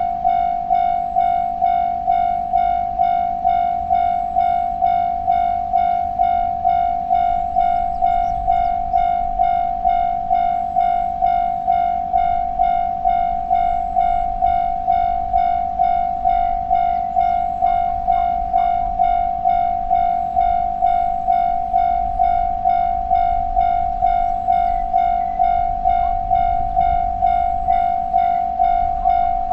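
Japanese railway level-crossing warning bell ringing its steady 'kan-kan' at a little under two strokes a second, each stroke the same high ringing tone. A low rumble builds beneath it in the second half.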